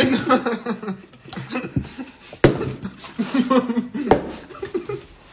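Men's voices talking and laughing, with two sharp knocks, about two and a half and four seconds in.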